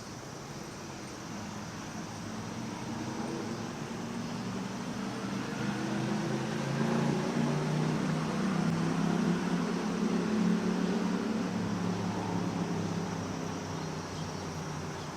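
An engine passing by, its low hum growing louder to a peak about seven to eleven seconds in and then fading away. Cicadas keep up a steady high buzz behind it.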